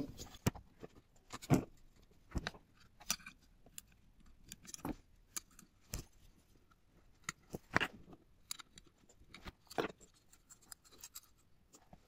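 Irregular light clicks, taps and scrapes of a screwdriver and metal parts on the metal housing of a dismantled vacuum cleaner motor, handled by hand.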